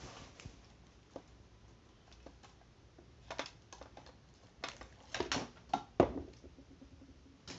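Scattered clicks and knocks of a ring light being fitted and adjusted on a tripod, with a cluster of sharper knocks about five to six seconds in, the loudest about six seconds in.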